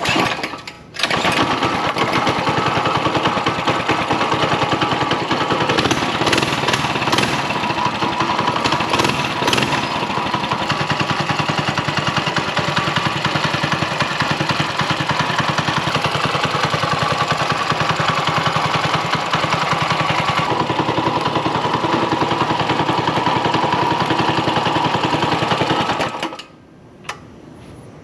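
Mini bike's Predator 212 single-cylinder four-stroke engine starting about a second in, then running steadily with an even, rapid firing beat until it shuts off suddenly near the end.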